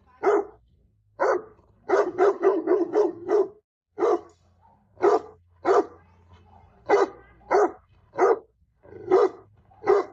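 Pit bull barking, spaced-out single barks with a quick run of about seven barks in a row near the start. The barking is a guard bark at someone, the dog protecting its owner.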